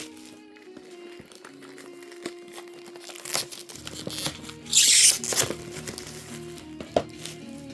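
Packaging on a trading-card box crinkling and tearing as it is opened by hand, with a few sharp handling knocks and one loud tear about five seconds in, over background music.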